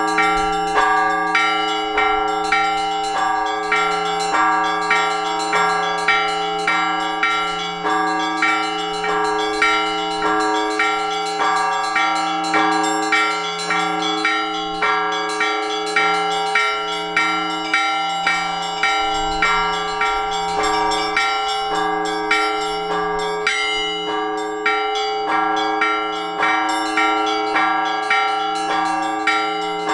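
Orthodox church bells rung together from a bell tower: several small bells struck in a steady rhythmic pattern, about two strokes a second, over the lasting hum of larger bells. The ringing calls the faithful to the all-night vigil.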